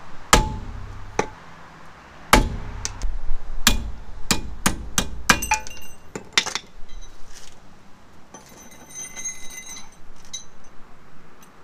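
Hand hammer striking the steel steering knuckle of a Jeep Wrangler TJ's front axle: about ten sharp metal blows, the hardest two near the start, then lighter ringing clinks of metal tools near the end.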